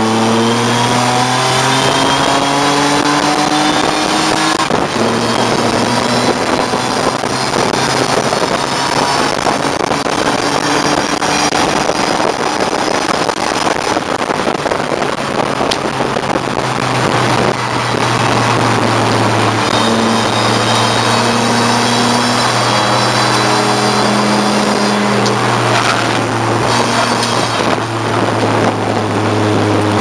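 A BMW E34 race car's engine heard from inside the stripped cabin, running hard at racing speed. Its pitch climbs as the car accelerates and breaks off at gear changes, over steady wind and tyre noise.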